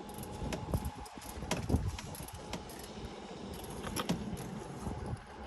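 Scattered light clicks and knocks of a new spin-on oil filter being turned by hand onto its mount, snugged without over-tightening.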